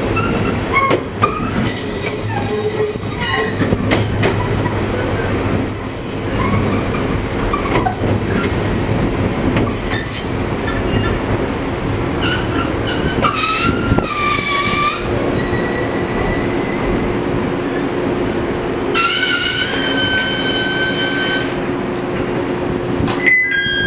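Running noise inside a JR 115 series electric train car, KuMoHa 115-504, with its MT54 traction motors beneath. High-pitched wheel squeal rises out of the steady rumble twice: a wavering squeal a little past the middle, then a steadier one a few seconds later.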